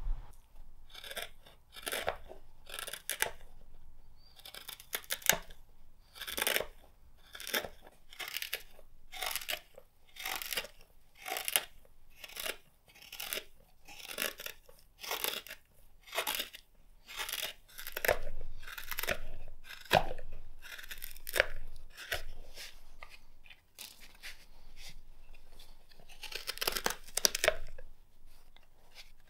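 Long-handled hook knife carving out the inside bottom of a green-wood bowl: a steady run of short slicing cuts, one or two a second, each shearing off a shaving of wood.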